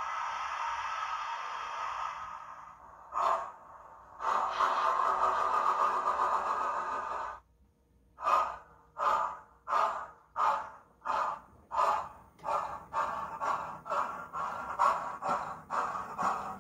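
Sound-fitted model steam locomotive's DCC decoder playing through its small onboard speaker: long hisses of steam, then, after a brief pause, exhaust chuffs that start slow and quicken steadily as the locomotive gets under way.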